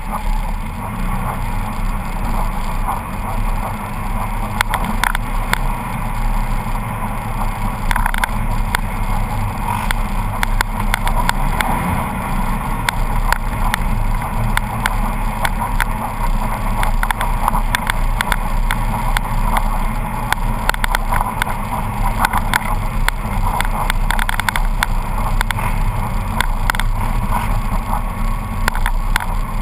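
Polaris RZR 800 side-by-side's twin-cylinder engine running steadily at speed, heard from a camera mounted on its hood, with rushing wind and tyre noise on snow. Many short, irregular clicks and knocks from the vehicle jolting over the rough track run through it.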